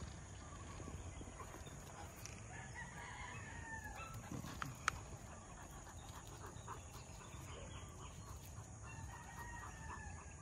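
Rooster crowing, faint, twice: one long call a couple of seconds in and another near the end. A low rumble runs underneath, and there is one sharp click about five seconds in.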